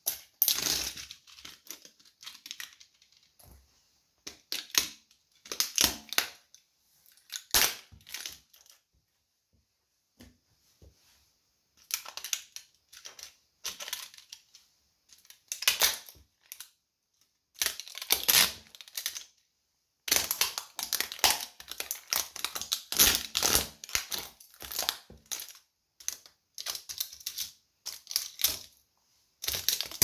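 Plastic toy train cars cracking and crunching under a sneaker's sole on a hard floor, in bursts of rapid snapping and grinding with short pauses between them, the busiest crunching in the second half.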